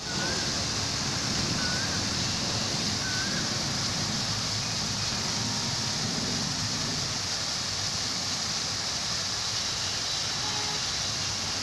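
Geyser jet fountain running: a steady splash and hiss of falling water. Three faint short chirps sound over it in the first few seconds.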